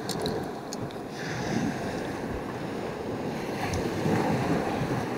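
Sea waves washing against a rocky shoreline, with wind buffeting the microphone. A few faint high clicks come in the first second.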